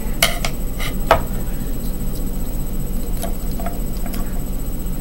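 Light plastic clicks and taps from hands pushing green drinking straws onto a small plastic toy truck, a few in the first second and a couple of fainter ones around three seconds in, over a steady low hum.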